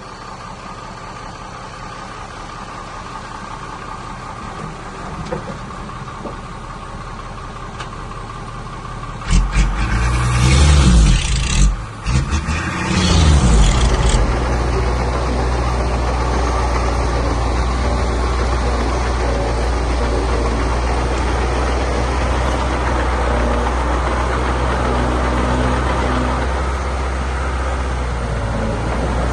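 Diesel engines of heavy earthmoving machinery running. About nine seconds in comes a loud stretch of engine noise with the pitch sliding up and down for a few seconds, then a louder, steady engine sound.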